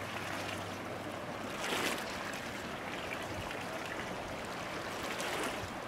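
Small waves washing steadily, with a brief louder swell about two seconds in and again near the end.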